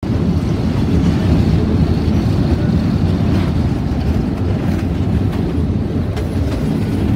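Steady low rumble of a moving diesel-hauled train, locomotive and wheels on the rails, heard from an open platform right behind the locomotive, with a few faint clicks from the wheels.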